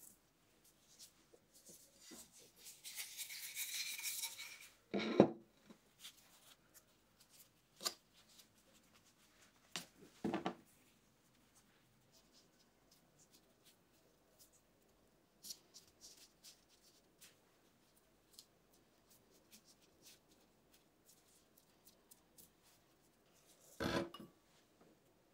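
Hands handling tart dough and a tart ring on a silicone baking mat. A rustling scrape runs from about two to four seconds in, followed by scattered soft knocks and taps. The loudest knock comes about five seconds in, and another knock falls near the end.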